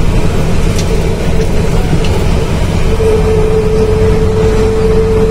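Scania truck's diesel engine and road noise heard inside the cab while driving, a steady low rumble. A steady high whine joins it about halfway through.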